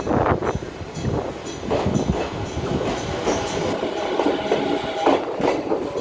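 A train rolling over a station-yard level crossing, its wheels clacking over the rail joints. The crossing's electric warning bell keeps ringing faintly behind it.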